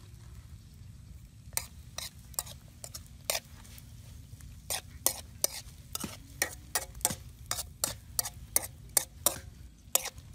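Metal spoon clinking and scraping against a steel wok while baby lobsters are stir-fried. The sharp clinks start about a second and a half in and come quicker in the second half, over a low steady rumble.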